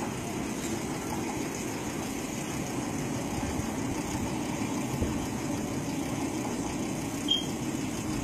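A steady low rumble of background noise, with one brief faint high chirp about seven seconds in.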